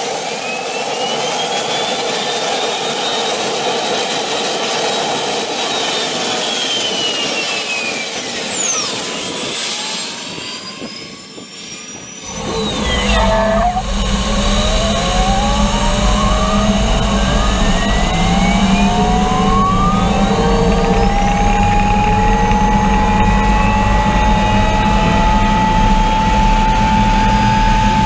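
Gas-turbine motorcycle with a high turbine whine whose tones shift and glide, dropping away about ten seconds in. It is followed by a full-throttle run heard from on board: a heavy rumble with whine tones climbing steadily as the bike accelerates.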